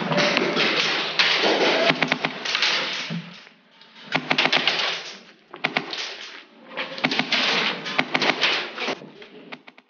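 Several bursts of rapid full-auto airsoft fire, a dense clatter of snapping shots. The bursts last one to three seconds each, with short pauses between them.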